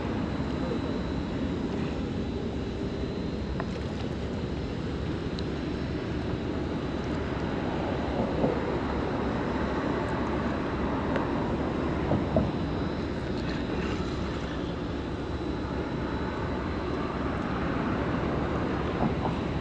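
Steady low outdoor rumble, with a few faint ticks about eight and twelve seconds in.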